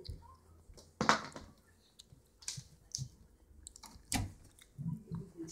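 Scattered clicks and knocks, with a louder knock about a second in and another about four seconds in: handling and movement noise.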